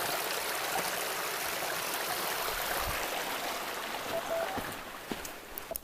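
A woodland brook running: a steady rush of flowing water that fades away near the end.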